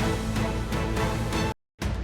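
Background music with a steady beat that cuts out abruptly for a moment near the end, then resumes.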